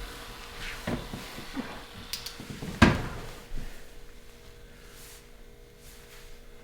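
Rustling and light knocks of a body shifting on a padded chiropractic treatment table, with one sharp, loud knock about three seconds in and a few faint ticks after it.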